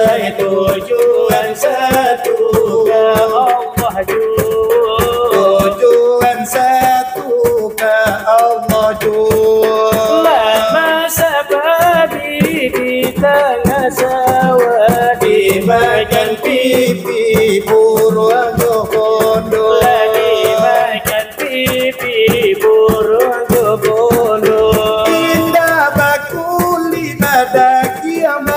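Salawat dulang: men singing a wavering, melismatic chant while beating large metal dulang trays with their hands in a fast, steady rhythm.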